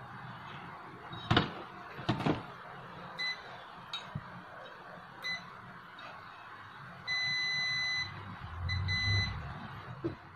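Digital multimeter's continuity buzzer beeping as its test probes touch points on an amplifier circuit board: several short beeps, one held for about a second, then two more short ones. Two sharp clicks, the probes knocking against the board, come in the first two seconds.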